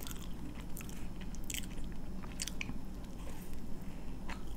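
Close-miked chewing and biting of food, with irregular small crunches and mouth clicks.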